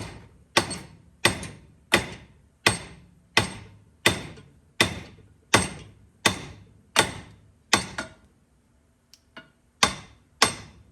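Hammer blows on steel at a steady pace of about one every 0.7 seconds, each with a short metallic ring, knocking an old ball joint out of the Ford Bronco II's front suspension. The blows stop about eight seconds in, and after a pause with a couple of light taps they start again near the end.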